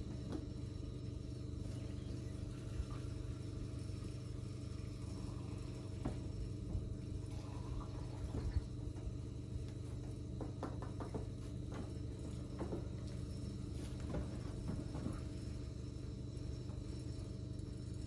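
A few faint knocks and clicks of a plastic gas can being handled while the sawmill engine's fuel tank is refilled, over a steady low hum and faint insect chirping.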